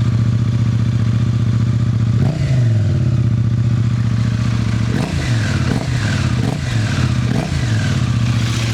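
KTM 790 Adventure's parallel-twin engine idling through a newly fitted aftermarket Black Widow exhaust, blipped once a little over two seconds in and then given several quick throttle blips in the second half.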